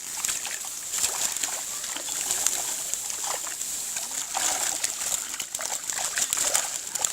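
Pond water splashing and sloshing, a continuous run of small irregular splashes.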